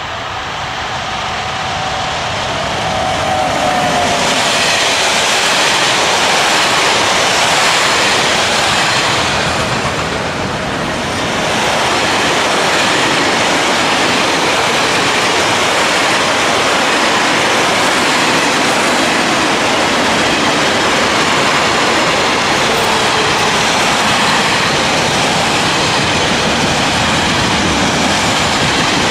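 Freight train passing at speed close by. It grows louder over the first few seconds as it approaches, dips briefly around ten seconds in, then goes on as a long, steady rush of wagon wheels on the rails.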